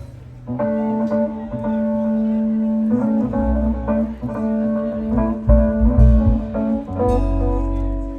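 Live guitar and bass playing a groove: the guitar holds sustained chords from about half a second in, and the bass comes in with low notes about three seconds in.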